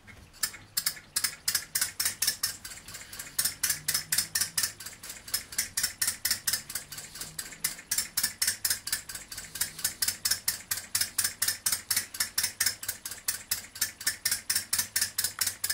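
Twin-cylinder four-stroke hot bulb model engine, preheated and turned over by hand on its flywheel, catches almost at once and runs on turpentine. It makes a sharp, even clicking beat of about five a second that holds steady.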